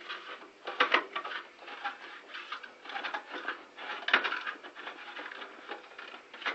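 Irregular small clicks, taps and scrapes of hands working a light bulb against its lampholder, with a sharper knock about a second in and another about four seconds in.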